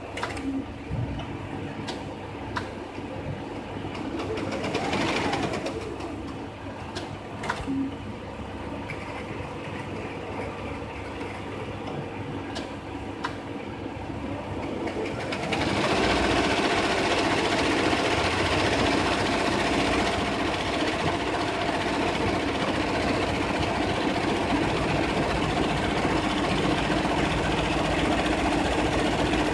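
Brother multi-needle embroidery machine stitching a logo, a steady rapid mechanical chatter with scattered clicks. It gets clearly louder and denser from about halfway through.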